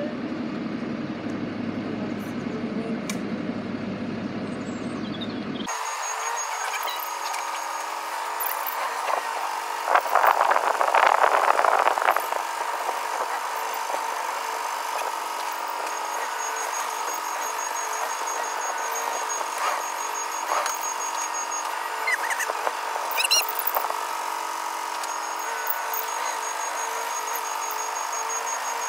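Lorry and tractor engines running steadily while the stuck lorry is towed, with a louder surge of engine noise from about ten to twelve seconds in. The deep low rumble drops out abruptly about six seconds in.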